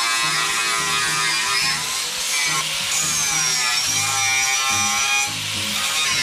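Angle grinder grinding the steel of a car body panel, its high motor whine dipping and rising in pitch several times, with background music underneath.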